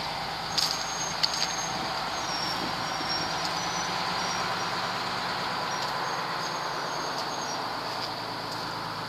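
Crane engine running steadily while the crane holds a sailboat in its slings, with a few brief high squeals and a couple of light clicks about a second in.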